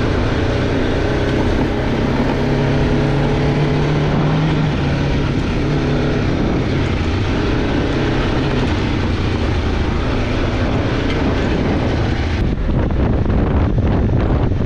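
Kawasaki KLE500's parallel-twin engine running as the bike is ridden along a dirt track, with tyre and wind noise. About twelve seconds in the sound changes suddenly to rougher wind buffeting on the microphone over the engine.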